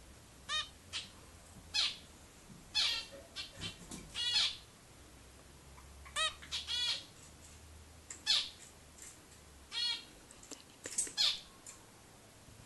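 Three-week-old zebra finch chick calling: short repeated calls, a dozen or more in irregular bunches with gaps between them.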